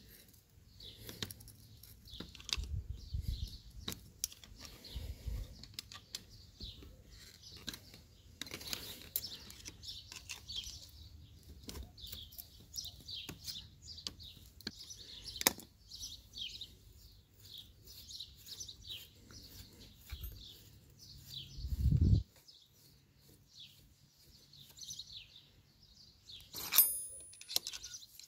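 Small birds chirping on and off, over scattered metallic clicks and scrapes from a flat screwdriver levering at the compressed coil spring and spring seat of a Yamaha Jog scooter's rear shock absorber. A dull thump comes about three-quarters of the way in, and a sharp ringing metal clink near the end.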